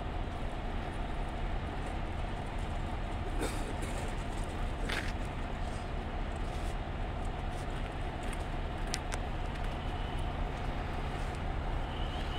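Vehicle engine idling steadily, a low even hum with a faint steady tone above it.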